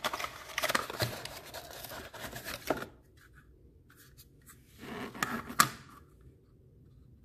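Cardboard and plastic packaging rustling and scraping as a small thermostat room sensor is lifted out of its box: a first bout of about three seconds, then a shorter one about five seconds in.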